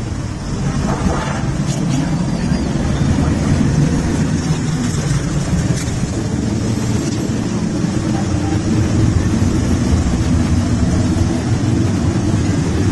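Motorcycle engines running steadily on a group ride, a continuous low engine sound with no breaks.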